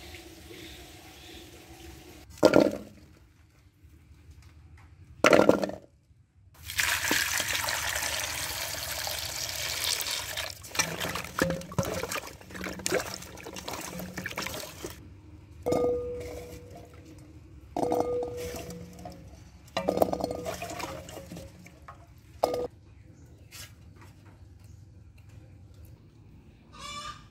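Small potatoes being scrubbed by hand in a metal basin of water, splashing and sloshing for about eight seconds. Afterwards come four metallic clanks, each ringing briefly, about two seconds apart, with two sharp knocks earlier on.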